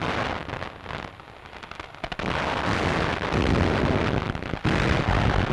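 Naval guns firing a landing barrage: a blast at the start, then from about two seconds in a dense, unbroken din of gunfire, with a brief break near the end.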